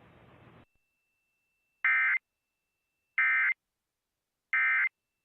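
Emergency Alert System end-of-message signal: three short, identical bursts of warbling digital data tones, evenly spaced about 1.3 seconds apart. This is the SAME "NNNN" code that marks the end of the alert and closes the test.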